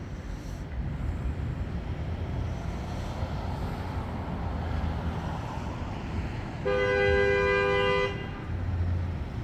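Street traffic rumbling steadily, then a car horn sounds once, a single two-tone blast about a second and a half long.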